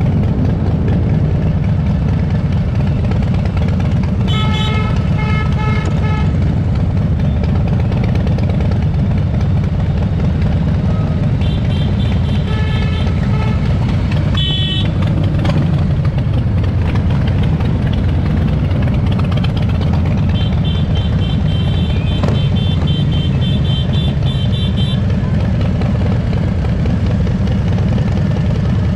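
Harley-Davidson V-twin motorcycle engines rumbling steadily at parade pace. Horns sound in three bursts of short, repeated beeps: about four seconds in, again around twelve to fifteen seconds, and a longer run near twenty to twenty-five seconds.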